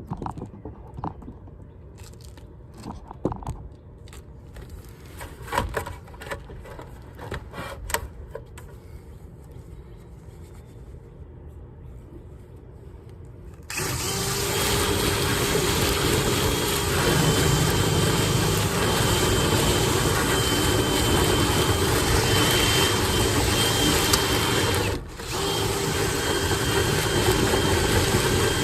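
Scattered clicks and knocks of equipment being handled, then a power drill driving a rotary dryer-vent cleaning brush starts about halfway through. It runs steadily with a faint whine, cuts out briefly near the end, then runs again.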